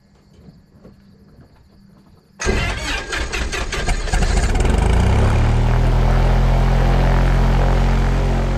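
Cessna 172's piston engine starting: about two and a half seconds in the propeller is cranked over and the engine catches with a rapid, ragged run of firing, then within a couple of seconds settles into a steady idle.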